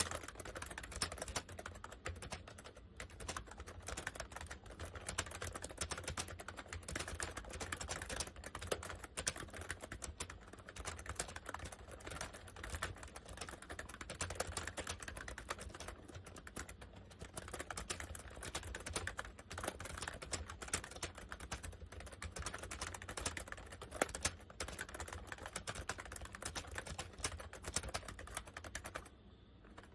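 Fast, continuous typing on a Honeywell 101WN/WT keyboard with dye-sublimated PBT keycaps: a steady stream of key clicks, pausing briefly near the end.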